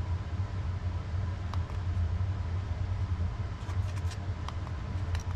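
A steady low hum with a faint high tone, and a handful of small, sharp clicks: the plastic buttons on an LED strip's inline controller being pressed to change its lighting mode.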